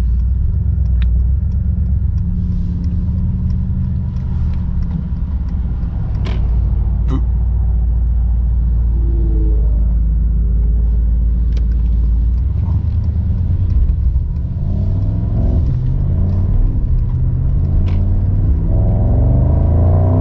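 Mercedes-AMG SL55's 4.0-litre twin-turbo V8 running as the car drives: a steady low drone for the first dozen seconds, then its pitch climbs as the car accelerates.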